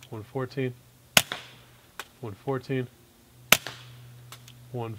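Two suppressed shots from a Ruger 22/45 Lite .22 rimfire pistol fitted with a Griffin Optimus Micro suppressor, about two seconds apart. Each is a sharp crack with a brief ring-out, metering about 114 dB.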